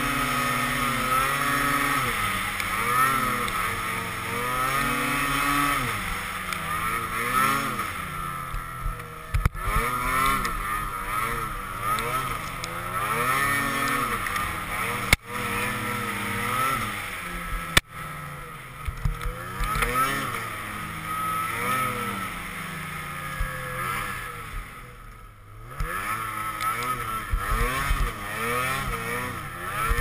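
Ski-Doo Tundra Xtreme snowmobile's 600 E-TEC two-stroke engine running under a working throttle, its pitch rising and falling again and again. Two sharp knocks come a few seconds apart about halfway through, and the engine eases off briefly near the end before picking up again.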